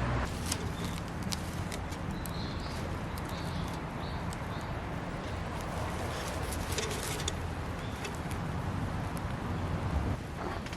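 Wood campfire crackling, with irregular sharp pops and snaps. A few short high chirps come between about two and five seconds in.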